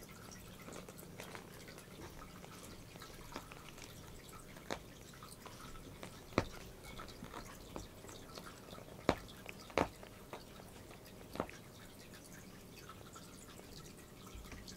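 A domestic cat licking its fur up close: soft, wet lapping ticks from its tongue, with a handful of sharper clicks from about the middle on.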